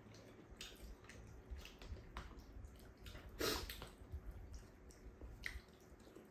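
Wet chewing and slurping of tteokbokki, with a few light clicks of chopsticks against bowls; louder about halfway through.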